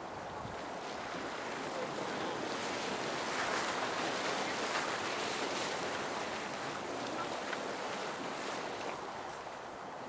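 Waterfall Geyser erupting: a steady rush of splashing, boiling water that grows louder for a few seconds in the middle and then eases.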